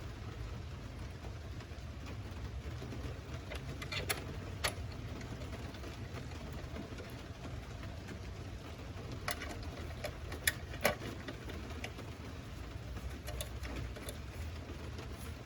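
A few scattered sharp metallic clicks and taps of hand tools on bolts and fasteners, over a steady low hum.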